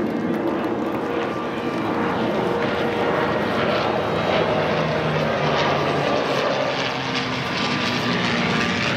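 Distant military aircraft of an airshow heritage flight passing overhead: a steady engine drone.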